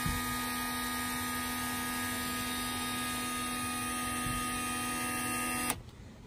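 Add-A-Motor chicken coop door motor running with a steady electric hum as it drives the door's fishing-line reel, then cutting off abruptly near the end as its rotating tab trips the limit switch.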